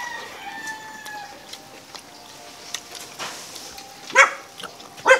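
A dog barking twice near the end, two short sharp barks about a second apart.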